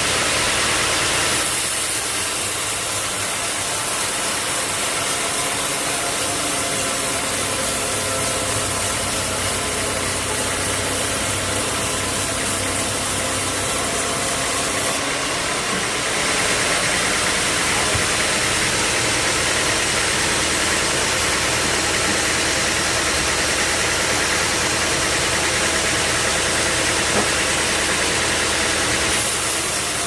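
Sawmill machinery running steadily: a motor hum with a dense high hiss over it. The tone shifts slightly about a second and a half in, again about halfway through, and once more near the end.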